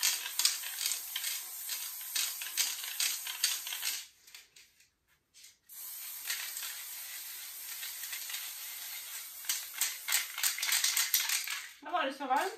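Aerosol spray paint can hissing as paint is sprayed onto a metal panel, in two long bursts (about four and about six seconds) with a short break between, with light clicking running through the hiss.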